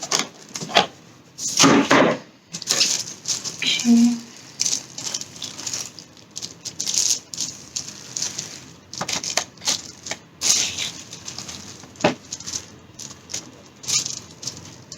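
Unboxed items and packaging being handled: irregular rustling with scattered light clicks and knocks, a sharp click about twelve seconds in.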